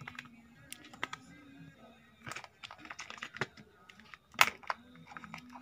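Irregular light clicks and knocks from a kitten scrabbling and pawing at a wooden cabinet and its plastic fixture, with one sharp, louder knock about four seconds in.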